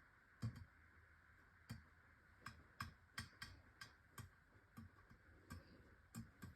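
Faint, irregular clicks and taps, about two a second, from cooked ziti noodles being set by hand into a baking pan.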